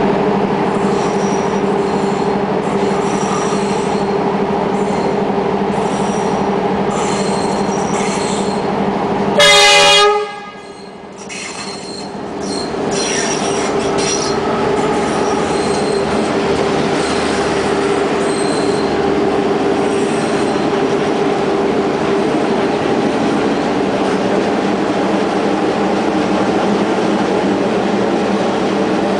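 DF8B diesel-electric locomotive approaching with its diesel engine running steadily, sounding one short horn blast about a third of the way through. It then passes close by, followed by the rolling noise of passenger coaches going past.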